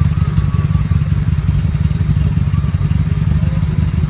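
Vehicle engine running with a steady low rumble, with no revving.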